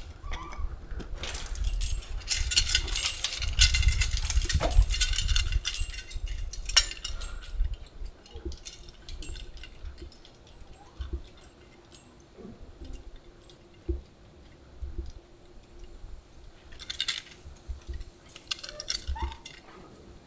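Metal swing chains clinking and rattling as young Japanese macaques climb and play on the swing. The clatter is dense for the first several seconds over a low rumble, then thins to scattered clinks, with short flurries near the end.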